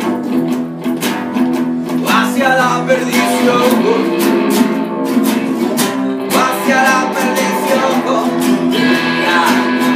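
Live guitar band playing a song: three acoustic guitars strumming chords and an electric guitar played through a small amplifier.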